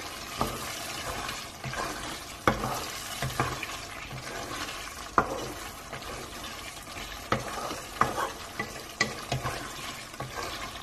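Wooden spatula stirring thick, wet curry gravy in a non-stick wok, with irregular soft scrapes and knocks against the pan over the low sizzle of the gravy cooking on the heat.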